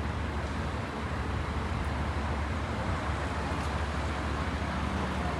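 Honda CBR sport motorcycle engine idling steadily through an aftermarket slip-on exhaust, a low even pulsing sound.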